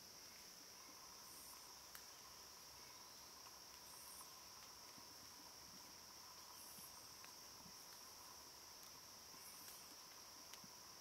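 Faint, steady insect drone in summer woods, with a shorter, higher buzz repeating every two to three seconds and a couple of light clicks.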